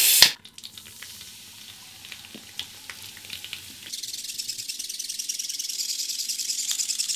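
Homemade servo-driven toothbrush scrubbing teeth, making a fast rhythmic scratching of bristles that grows louder about four seconds in. A brief loud rush of noise comes right at the start.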